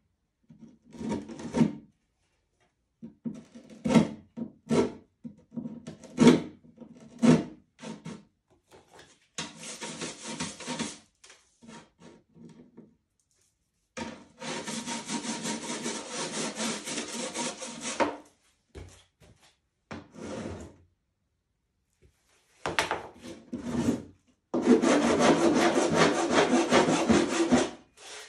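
A sanding block rubbed over a painted canvas. It starts as short separate scraping strokes, then settles into three long stretches of fast back-and-forth sanding with pauses between them, the last near the end the loudest.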